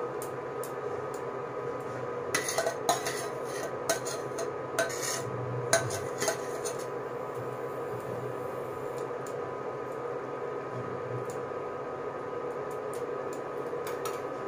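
Steel bowl and spatula knocking and scraping as chicken curry is scraped out onto a layer of rice in a pan: a run of clinks and knocks in the first half, then quieter spreading, over a steady hum.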